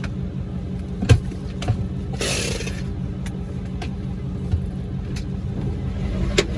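Car running with a steady low engine and road hum, with a few scattered clicks and a brief hiss about two seconds in.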